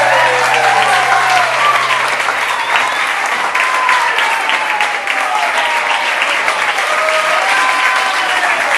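Audience applauding, many hands clapping steadily, with voices calling out over it. A low held note dies away in the first three seconds.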